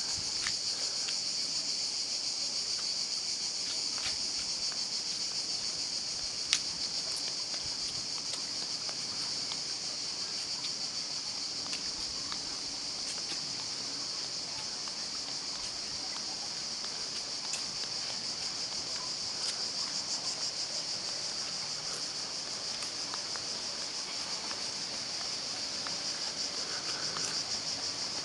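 Steady, high-pitched chorus of cicadas, an even shrill drone with a fine rapid pulse, with a few faint clicks and one sharp click about six and a half seconds in.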